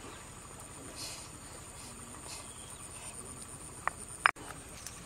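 Insects buzzing steadily at a high pitch while a stone pestle mashes chili paste in a mortar with soft squelching strokes; two sharp knocks about four seconds in, the second louder, then the sound breaks off abruptly.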